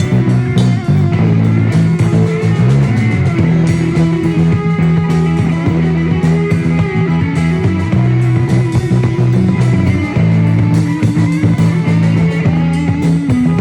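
A rock band jamming: guitar and bass playing over a drum kit, with steady drum and cymbal hits.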